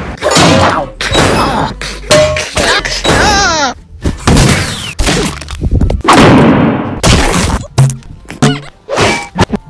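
A rapid string of cartoon slapstick sound effects, sudden whacks and thuds one after another, mixed with wavering and sweeping cartoon tones.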